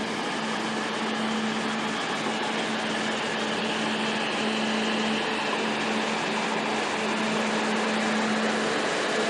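Hunter railcar diesel multiple unit pulling away under power: its diesel engines run with a steady hum, slowly growing a little louder.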